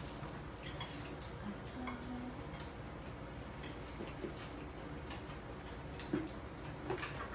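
Scattered light clicks and taps of tableware, plates and utensils knocking together while people eat, some with a brief ring, over a steady low background hum.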